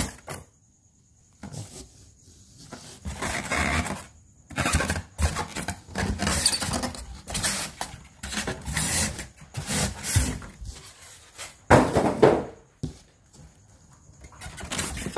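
Styrofoam packing and a cardboard box being handled by hand as an embroidery machine is taken out of them: irregular rustling, rubbing and knocking that starts about a second and a half in and is loudest about twelve seconds in.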